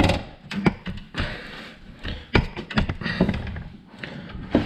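Irregular metal clinks, knocks and scraping as a replacement steering shaft is slid down into place and worked toward the splines at its lower end, with a sharp knock at the start and another near the end.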